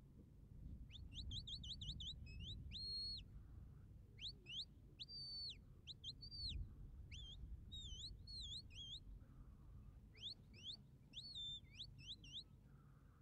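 A shepherd's whistle giving commands to working sheepdogs, faint: a run of quick rising whistles, then a string of short and held notes, some rising and some dipping and rising again. Low rumble underneath.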